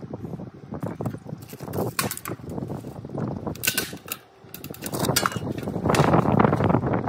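Irregular knocks and clicks from handling a sheet-metal standing-seam roofing panel, with a louder rushing stretch from about five seconds in that sounds like wind on the microphone.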